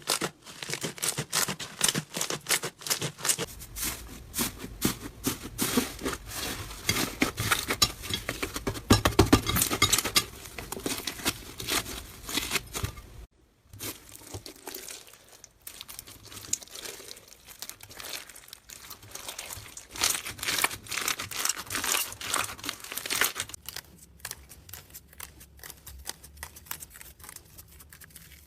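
Slime being squished and stretched by hand close to the microphone: a dense run of small crackling clicks and pops. There is a brief break about 13 seconds in, after which it goes on more softly.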